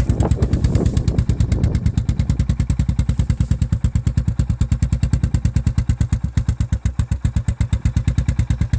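Honda TRX350 ATV's single-cylinder four-stroke engine idling steadily, with an even, rapid beat of about ten exhaust pulses a second. It runs through a homemade exhaust made from a Polaris Indy 500 snowmobile muffler, which sounds quite quiet.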